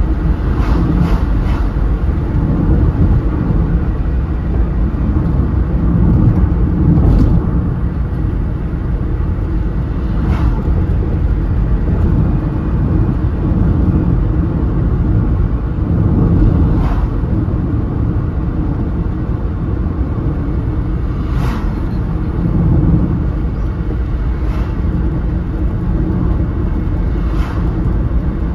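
Steady low road rumble inside the cabin of a car driving at speed on an open road, with a few faint clicks here and there.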